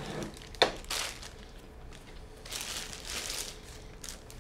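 Packaging crinkling and rustling as small flash accessories are handled and taken out, with a sharp click a little over half a second in.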